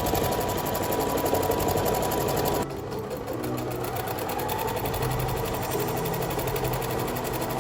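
Bernette sewing machine fitted with a walking foot, stitching steadily at a fast even rate; it gets a little quieter about two and a half seconds in.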